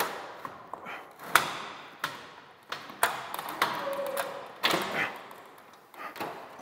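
Long 26-gauge galvanized steel ceiling sheet knocking and scraping as it is forced up into the J-channel overhead, a series of sharp metallic knocks that echo in the room.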